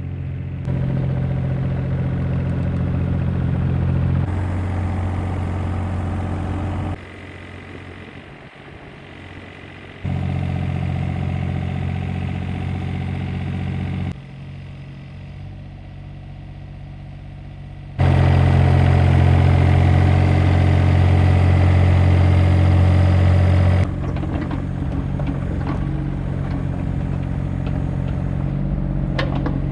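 Excavator engine running steadily. The level jumps abruptly between louder and much quieter stretches every few seconds.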